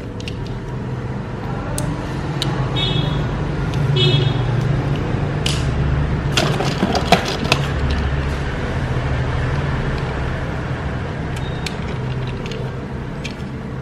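Small die-cast metal toy cars clicking and clattering as they are handled in a cardboard box, with a cluster of clicks about six to seven and a half seconds in, over a steady low hum.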